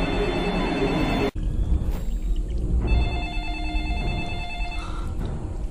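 Telephone ringing in two long rings, the first cut off abruptly about a second in and the second starting about three seconds in, over a steady low rumble.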